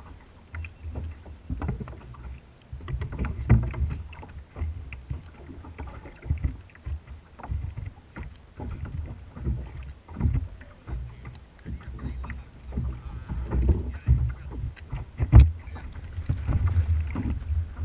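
Irregular knocks, clicks and rustling of fishing tackle being handled aboard a kayak, over a low, uneven rumble. One sharper knock comes about three-quarters of the way through.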